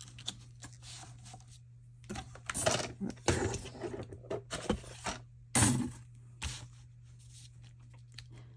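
Sheets of card and a plastic paper trimmer being handled and slid about on a cutting mat: irregular rustles and scrapes with a few sharper clatters, busiest between about two and six seconds in, over a low steady hum.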